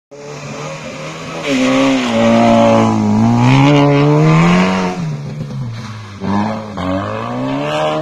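Small hatchback's engine revving hard, the revs rising and falling several times as it is driven hard through a cone course, with bouts of tyre squeal in the turns.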